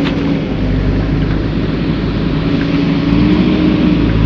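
Motorcycle engine running steadily while riding over a rough dirt road, with wind and road noise over it. The engine note rises a little about halfway through.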